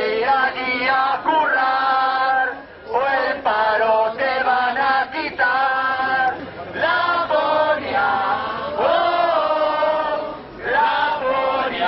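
Protest crowd chanting slogans in unison, led by a man's voice through a megaphone, the same phrase repeated over and over with short breaks between rounds.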